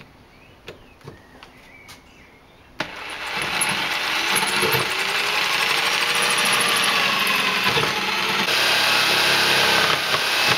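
A few clicks, then, about three seconds in, an electric jigsaw starts and cuts through a wooden plank. It makes a loud, continuous sawing buzz with a motor whine that wavers in pitch as the blade works through the wood.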